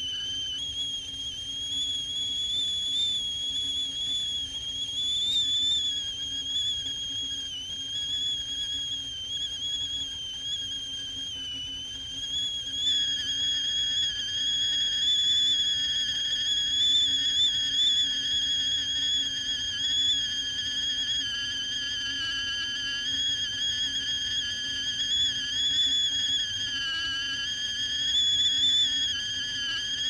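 Stovetop tea kettle whistling at the boil: a steady high whistle that wavers slightly in pitch, with a second, lower tone joining about thirteen seconds in.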